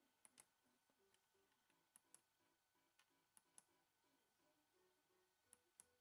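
Faint clicks of a Miele G 5720 SC dishwasher's control-panel push buttons being pressed, four times, each press a click down followed by a click up a fraction of a second later.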